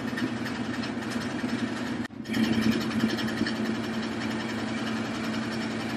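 A steady mechanical hum, like a small motor running, that cuts out for a moment about two seconds in.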